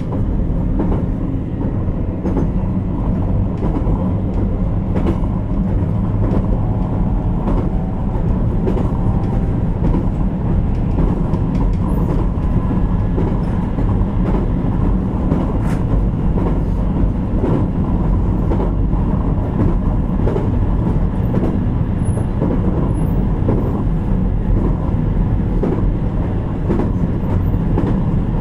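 Running sound of a JR Kyushu 817 series electric multiple unit, heard from inside the motor car KuMoHa 817-1009: a steady rumble of wheels on rail as the train runs at an even pace, with a few faint clicks.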